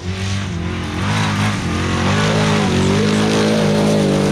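Formula Offroad car's engine revving hard under load, its pitch wavering, with the tyres flinging sand and gravel; it gets louder about a second in as the car comes close.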